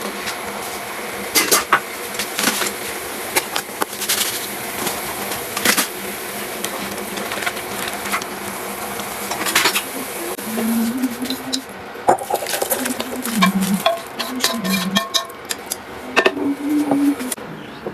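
Utensils clinking and clicking against dishes, many sharp knocks spread unevenly over a steady hiss, with a low wavering hum in the second half.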